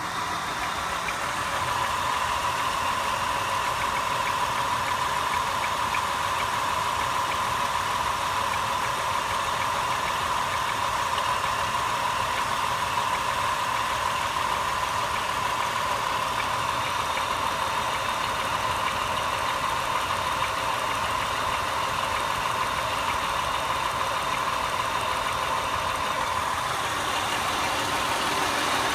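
2002 Acura TL's 3.2-litre V6 idling steadily while not yet fully warm, with the rough idle and knock that the owner has not cured with Seafoam and ethanol-free 91-octane fuel.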